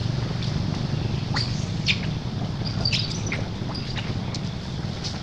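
Wind rumbling on the microphone, with a few short, high animal chirps and squeaks from about a second and a half in to about four seconds in.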